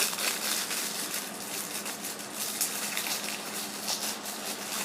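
A tightly packed product box being worked open by hand: a steady rustling and scraping of packaging with many small crackles.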